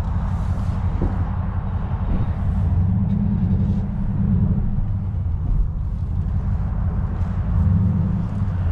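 Low, steady rumble of a vehicle's engine and tyres heard from inside the cab while driving slowly, swelling a little twice.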